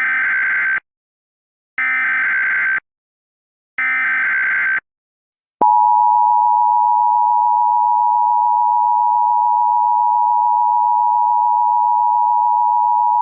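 Emergency Alert System header: three one-second bursts of SAME digital data tones, a second apart, then the two-tone EAS attention signal held steady for about eight seconds. The attention signal starts about five and a half seconds in and cuts off sharply at the end.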